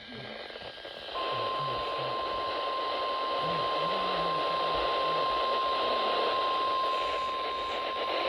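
NOAA Weather Radio warning alarm tone: a single steady 1050 Hz tone that starts about a second in and holds, over a hiss of radio static. It is the alert tone that announces a warning broadcast, here a severe thunderstorm warning.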